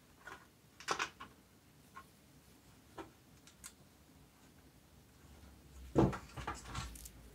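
Handling noise from a power-supply circuit board and its plastic enclosure: scattered light clicks and knocks, then a short cluster of louder knocks and rattles about six seconds in as the board comes up out of the case.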